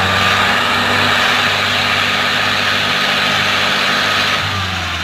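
Tractor's diesel engine running hard with a steady drone, as it strains to pull a sugarcane-loaded trolley stuck in mud. The engine drops in loudness and pitch near the end.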